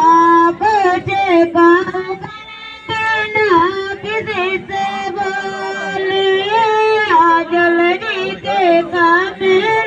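A single high voice singing a melody without instruments, holding long notes and bending them with wavering ornaments, with a short breath pause about two seconds in.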